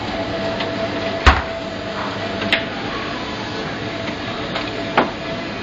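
Three sharp metallic knocks of a portafilter being handled at an espresso machine, the first the loudest with a dull thud, over a steady hum.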